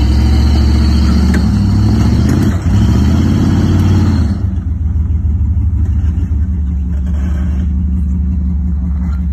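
5.7-litre V8 in a lifted Jeep Grand Cherokee working over rocks: revved under load with a brief dip and climb in pitch about two and a half seconds in, then easing off to a lower, steady run for the second half.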